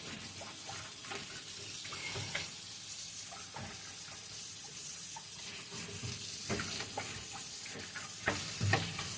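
Kitchen faucet running into a sink as it is cleaned, with scattered knocks and clatter, a few louder ones near the end.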